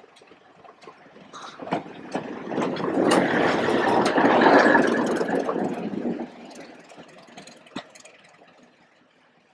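Class 31 diesel locomotive passing close by. Its engine and wheels on the rails grow louder over a couple of seconds, are loudest in the middle, then fade as it moves away, with scattered clicks.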